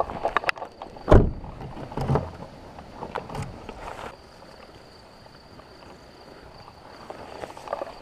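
Car door opened with a few clicks and slammed shut about a second in, followed by a couple of lighter knocks and then quieter footsteps on the roadside gravel.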